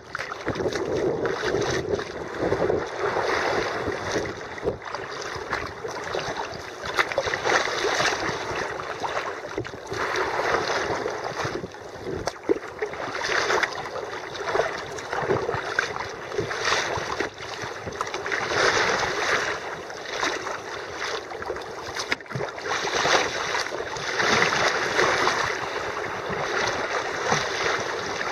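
Sea water sloshing and splashing against a sea kayak's hull as it is paddled through light chop, swelling and easing in a rough rhythm about every two seconds.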